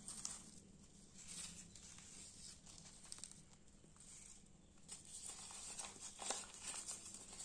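Faint crinkling and rustling of thin paper seed packets being unfolded and handled, in short scattered crackles.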